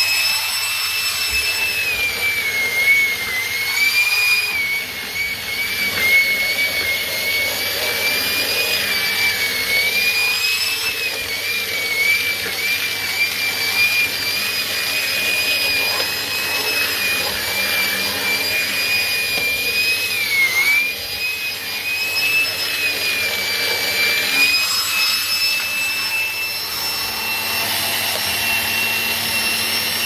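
Numatic Henry XL NVR370-11 tub vacuum cleaner running steadily while vacuuming carpeted stairs, with a high motor whine that wavers slightly in pitch and dips briefly about two-thirds of the way through.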